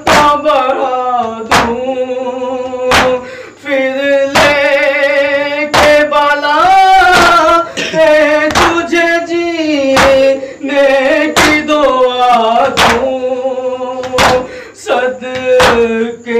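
A male voice singing a noha, a Shia lament, in long wavering held notes, over a steady rhythm of loud, sharp slaps from mourners beating their chests (matam).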